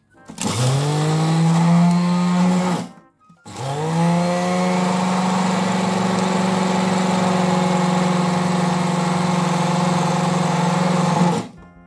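Electric mini food chopper grinding rolled oats and other dry ingredients into a flour: the motor whines up to speed, runs about two and a half seconds, stops briefly, then runs steadily again for about eight seconds before cutting off.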